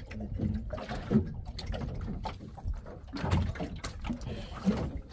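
Scattered knocks and clatter from a longline being hauled by hand into a small open fishing boat, over a steady low rumble.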